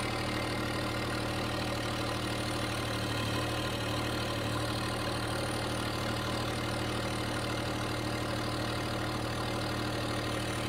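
John Deere 1025R subcompact tractor's turbocharged three-cylinder diesel engine running at a steady speed as the tractor drives slowly, a steady even drone.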